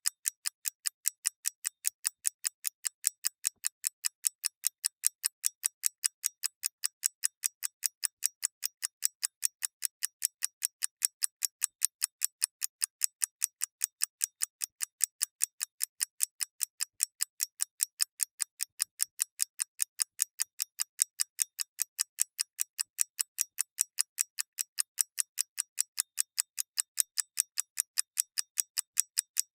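Mechanical clock ticking: a steady, even run of sharp, crisp ticks, several a second, with no pause.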